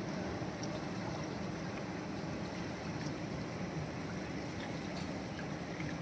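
Steady rush of river water flowing over and around rocks.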